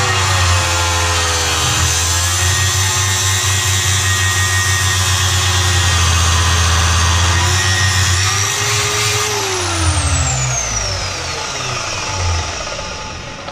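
Parkside PTMS 180 A1 electric metal cut-off saw running and cutting through a 20×20 mm square steel tube with 2 mm walls, the motor's pitch sagging under load. About ten seconds in it is switched off and spins down with a falling whine.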